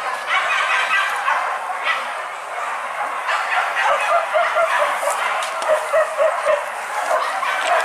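Hunting dogs barking and yelping, several calls overlapping, with a run of quick short yelps in the second half.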